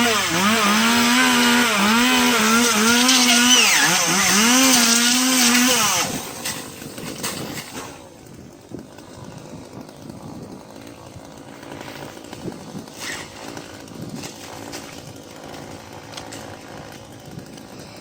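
Chainsaw running at high revs, its pitch dipping and rising in about five surges, then stopping about six seconds in; after that only faint scattered knocks and rustling remain.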